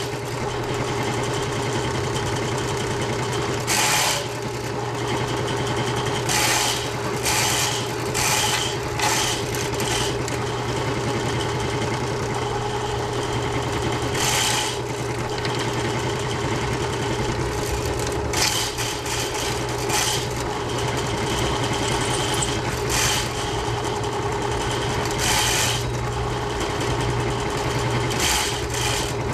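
Ridgid K60 sectional drain-cleaning machine running steadily, its electric motor spinning the cable as it is fed into a clogged kitchen branch line. Brief, harsher bursts of noise break in every few seconds.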